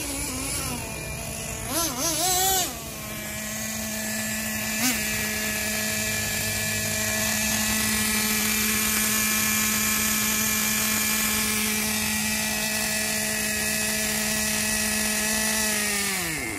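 Traxxas TRX 2.5 two-stroke nitro engine of an RC monster truck revving with a wavering pitch for the first few seconds, then idling steadily at a high pitch, and dying away with a falling pitch near the end. It is running freely after being seized solid, with what the owner takes for a small air leak on the top.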